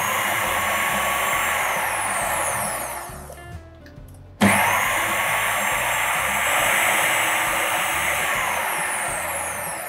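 Food processor motor pulsing almond flour and icing sugar in two bursts. Each starts suddenly and whirs steadily, then winds down with a falling whine; the second starts about four and a half seconds in.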